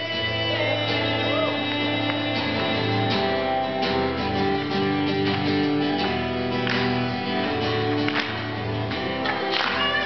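Acoustic guitar strummed as live song accompaniment, chords ringing with a strum stroke every second or two.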